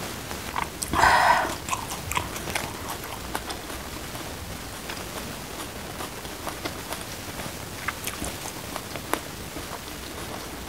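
Close-up mouth sounds of someone chewing a mouthful of food, soft wet clicks and smacks over a steady hiss, with one louder smack about a second in.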